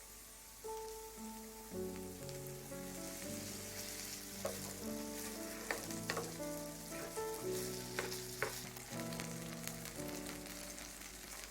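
Food sizzling as it fries on an electric hot plate, with a few sharp clicks. Background music with a melody and bass line comes in about two seconds in.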